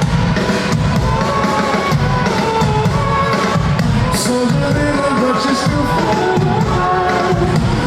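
Live indie rock band performance: a lead vocal sung over drums and bass, loud and steady.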